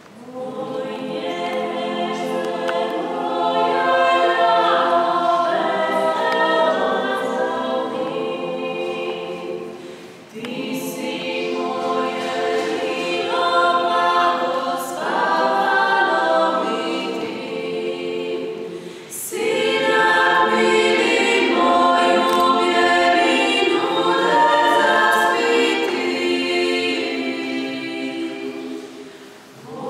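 Vocal group singing a cappella in several-part harmony, in long sustained phrases with short breaks about 10 and 19 seconds in.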